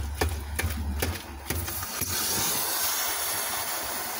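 A few sharp knocks in the first second and a half, then from about two seconds in a steady hiss as a damaged 6S lithium-polymer drone battery vents smoke and gas.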